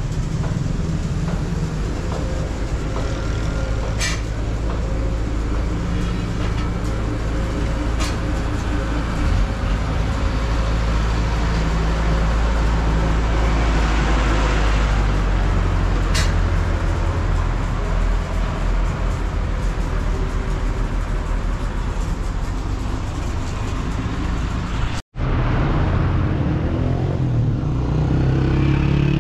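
Motor vehicle engine running steadily amid road traffic noise, with a few sharp clicks. The sound cuts out for a split second near the end.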